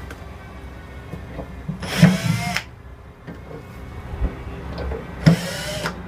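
Power drill-driver running in two short bursts, about two seconds in and again about five seconds in, each with a rising whine as the motor spins up: backing out the screws that hold a speaker cabinet's grille.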